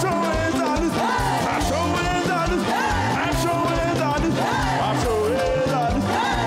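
Live praise band playing an upbeat African gospel groove on drum kit, electric bass and keyboard, with a voice singing over it.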